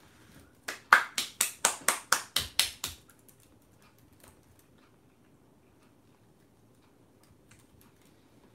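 Metal spoon clinking and scraping against a small ceramic rice bowl: about ten quick strokes, four or five a second, for roughly two seconds, then only faint clicks.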